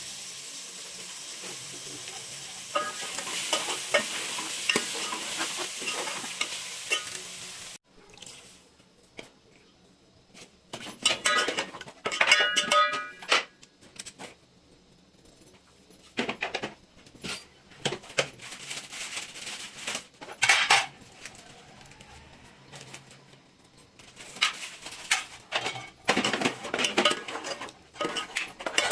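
Food sizzling in a hot pan while a spoon stirs and scrapes it. The sizzle cuts off abruptly about a quarter of the way in, and after that come scattered clinks and clatters of metal utensils against pans and dishes, some of them ringing.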